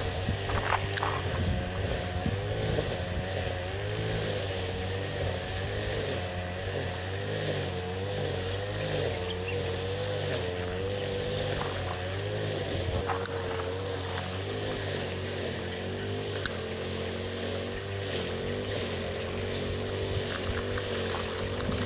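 A motor droning steadily, its pitch wavering slightly, with a few faint clicks.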